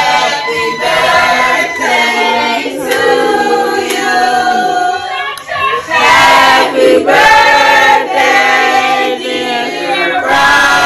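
A group of voices singing together like a choir, holding long notes.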